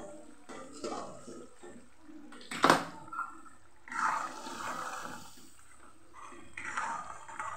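Thick tomato-onion gravy bubbling at the boil in a metal kadai, then stirred with a steel spoon scraping through it, with one sharp knock about two and a half seconds in.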